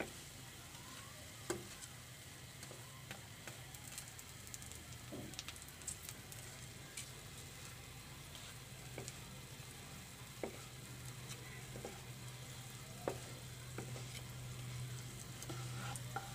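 Bread shallow-frying in hot oil in a nonstick pan, sizzling softly and steadily. A wooden spatula taps and scrapes against the pan now and then as the pieces are pushed and turned.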